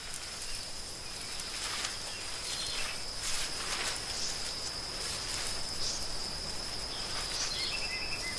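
Forest ambience: a steady high-pitched insect trill with scattered faint crackles, and a run of short high pips near the end.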